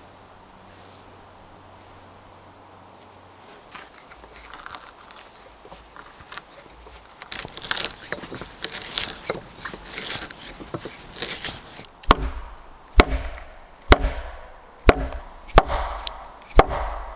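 Axe blows on wood, about one sharp chop a second in the second half, after several seconds of scraping and rustling of wood being handled.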